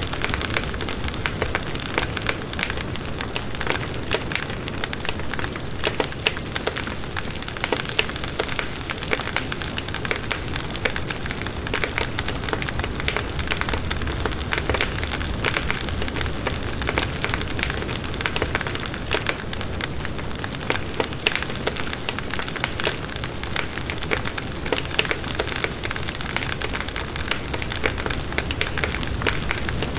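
Wood bonfire burning, with a steady, dense crackling over a low rushing of the flames.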